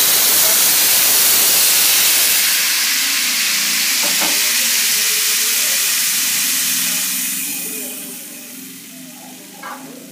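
Smoking-hot plain oil poured over a bowl of cooked daal maash as a tadka, sizzling and hissing loudly, then fading down over the last few seconds.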